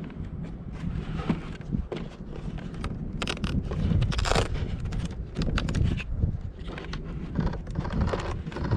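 Irregular scraping and clicking of hands handling a foam RC plane while pulling its flight battery out, over a low steady rumble.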